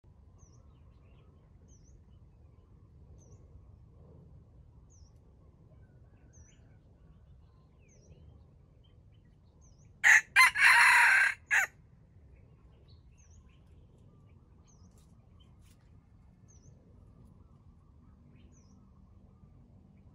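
A red junglefowl rooster crows once, about ten seconds in. The crow is short, about a second and a half, broken into a few syllables with the longest in the middle. A faint high chirp repeats about once a second throughout.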